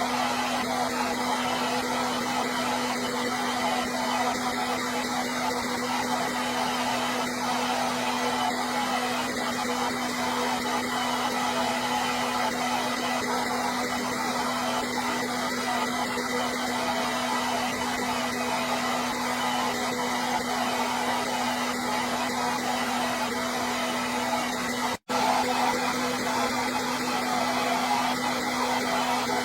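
Electric hair dryer running steadily: an even rush of blown air over a constant motor hum. The sound drops out for an instant near the end, then carries on unchanged.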